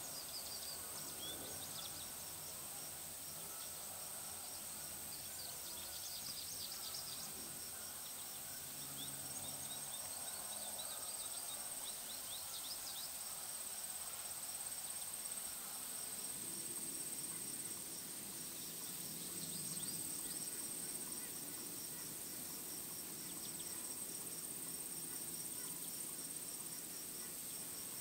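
Quiet woodland ambience: insects keep up a steady high-pitched drone with a fast, even ticking, and short bird chirps come and go in the first half.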